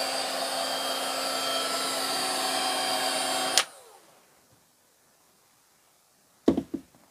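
Ryobi R18HG-0 18V cordless heat gun running, a steady fan rush with a whine, switched off about three and a half seconds in, its fan whirring down quickly to quiet.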